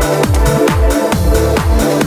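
Background electronic dance music with a steady kick-drum beat under sustained synth chords.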